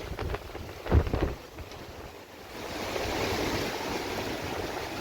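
Strong wind buffeting the microphone in low rumbling gusts, the loudest about a second in, then a steady rushing hiss from about halfway through.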